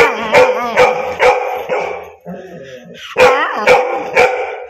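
Golden retriever barking: a string of short barks, each rising and falling in pitch, in two runs with a quieter lull in the middle.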